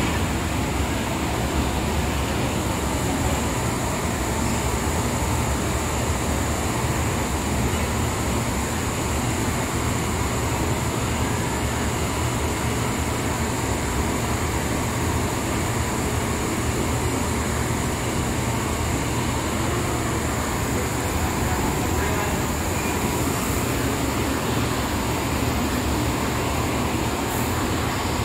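Hank dyeing machine for viscose yarn running: a steady mechanical hum and rush with a thin high whine held throughout.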